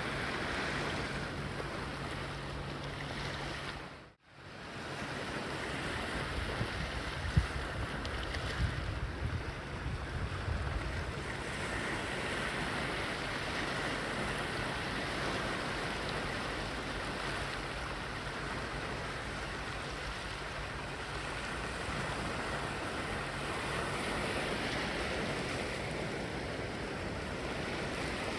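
Sea waves washing steadily on a Mediterranean beach, with a brief dropout about four seconds in and a few short bumps of wind on the microphone a little later.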